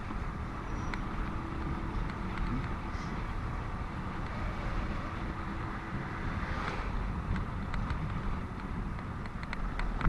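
Steady road noise heard from a moving motorcycle in traffic: a continuous low rumble of engines and tyres.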